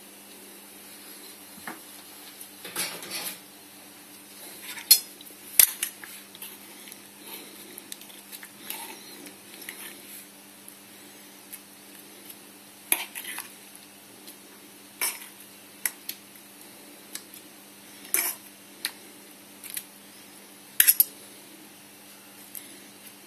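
Metal spoon clinking and scraping against a metal saucepan as fruit is spooned out, in sharp, irregular clinks every second or two, with a quick double clink near the end. A steady low hum runs underneath.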